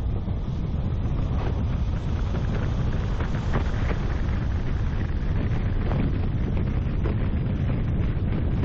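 A car driving along a rough tarmac road, heard from a bonnet-mounted camera: steady wind buffeting on the microphone over low engine and tyre rumble, with a few brief knocks from the road surface.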